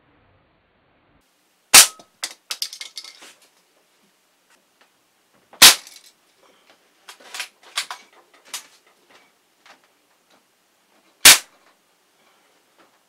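Three shots from a .22 Hammerli Pneuma air rifle, each a sharp crack: the first about two seconds in, the next about four seconds later, the last about five and a half seconds after that. After each shot come a second or so of smaller clicks and clatter as the pellet strikes and die-cast toy cars and debris are knocked about on the floor.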